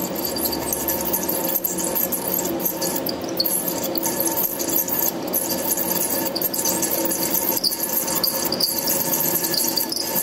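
Electric cooling fan on top of an HSD CNC spindle running with a steady hum and repeated short high squeaks and chirps, the tweaking, squeaking of a defective fan that is failing.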